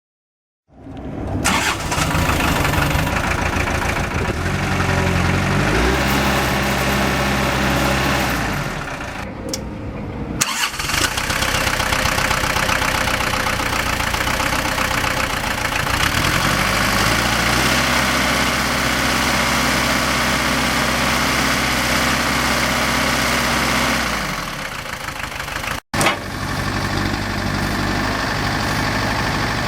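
2005 New Holland TC40D compact tractor's diesel engine starting about a second in and running, then revved up and back down to idle twice.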